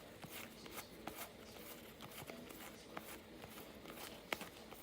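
Hockey trading cards being handled and flipped through one at a time: a faint, irregular run of soft clicks and rustles.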